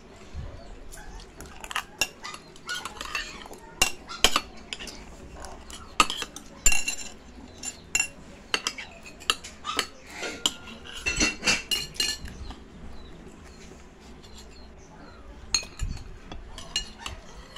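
Metal spoons and forks clinking and scraping against ceramic plates as rice is scooped up, in irregular runs of sharp clicks that come thickest about six and eleven seconds in.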